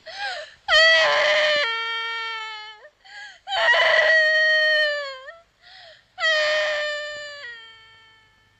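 A girl wailing in distress: three long, high cries, each held and then sliding down in pitch as it fades, with short sobs between them.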